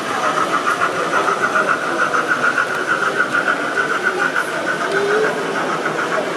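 Model railway locomotive running along the layout track: a steady mechanical running noise from its motor and wheels, with a fast, even flutter.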